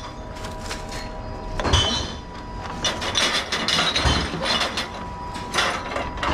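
Glass and plastic drink bottles clinking and knocking as they are handled from a trolley and fed one by one into a reverse vending machine, with several sharp knocks a second or two apart.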